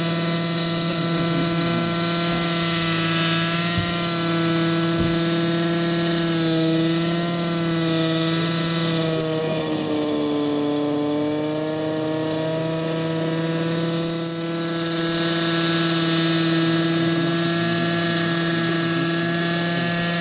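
Vintage radio-controlled model helicopter running steadily as it hovers low over the grass. Its pitch dips briefly about halfway through, then comes back up.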